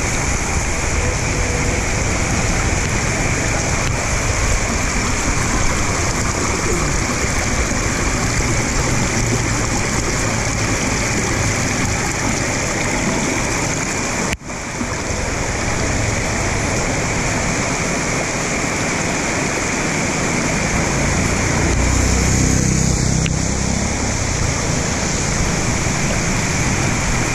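Rainwater runoff rushing steadily down a small concrete channel and pouring into a roadside culvert pipe. It breaks off for a moment about halfway through.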